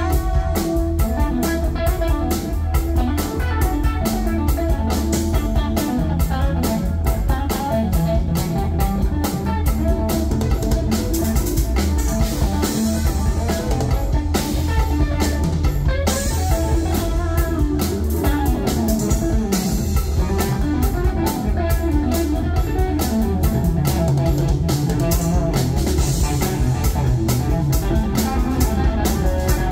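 A rock power trio playing live, loud and steady: electric guitar over bass guitar and a drum kit, with dense drum and cymbal hits throughout.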